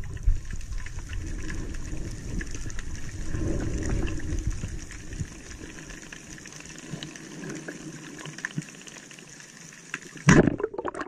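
Underwater sound from a diver's camera: steady water noise with a heavy low rumble that eases after about six seconds, with faint crackling throughout. A little after ten seconds comes a sudden loud burst, the speargun firing at a giant trevally at close range.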